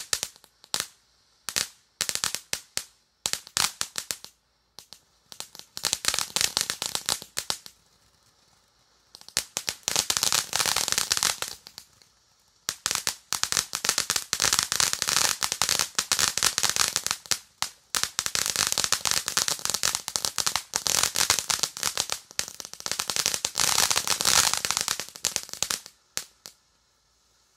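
Crackling ground fountain firework: dense, rapid crackling pops in runs of a few seconds with short pauses between them, stopping about a second before the end.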